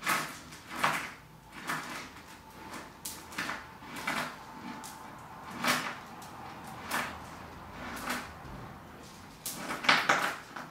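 Steel link chain clinking and rattling as it is handled link by link, in short irregular clinks, with a louder clatter of several clinks near the end.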